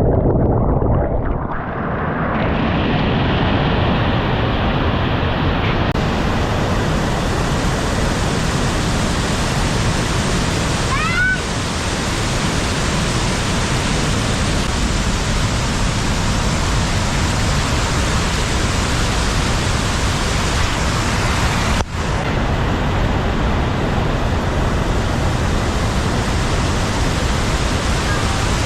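Steady, loud roar of rushing water, like a waterfall close by, with a brief rising chirp about eleven seconds in.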